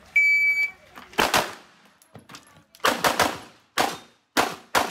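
Shot timer's start beep, a high steady tone of about half a second, followed by a string of about eight pistol shots fired in quick pairs and threes.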